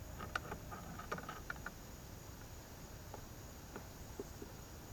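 Small metal clicks and ticks of an open-end wrench working a nut onto a cart wheel's axle bolt: a quick run of clicks in the first second and a half, then a few scattered ones.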